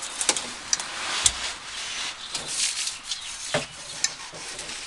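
Scraping and rubbing with scattered sharp clicks and a few knocks as the cat-back exhaust is worked loose by hand under the car.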